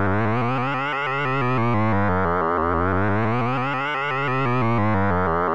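Synthesized tone from the Rotatosound software synth, its wavetable drawn from the screen positions of a rotating 3D 'Plane-Fish' wireframe's vertices. It is a buzzy tone with many overtones whose tone colour keeps shifting as the shape turns. With the pulse option on, the pitch steps up in small increments and resets every few steps, in a quick repeating cycle.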